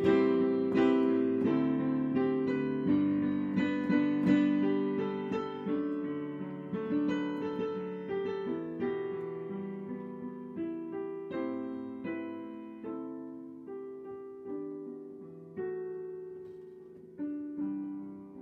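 Solo piano playing a slow, chordal piece, each note struck and left to decay, thinning out and getting quieter towards the end.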